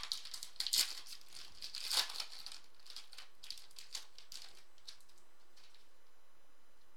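Foil wrapper of a 2015 Panini Crown Royale football card pack being torn open and crinkled as the cards are pulled out. The crackling comes in bursts, loudest about one and two seconds in, and thins out to a few light crinkles by about five seconds in.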